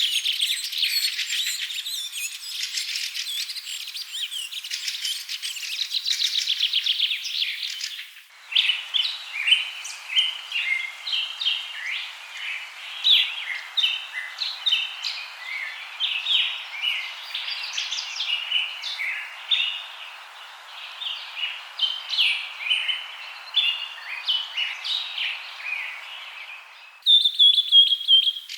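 Several songbirds chirping and singing in quick, overlapping calls and trills. The birdsong cuts abruptly to a different recording about a third of the way in, and again near the end to a fast, high trill.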